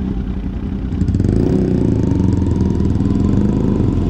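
Kawasaki Z800's inline-four engine running at low revs as the bike moves off slowly, growing louder about a second in and holding steady after that.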